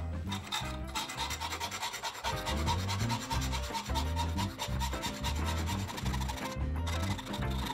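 Hand file rasping in strokes along the edge of a steel knife blank cut from an old circular saw blade, with background music underneath.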